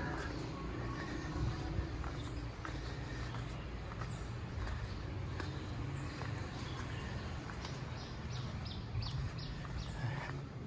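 Footsteps climbing stone steps and walking out onto stone paving, with a steady low rumble underneath.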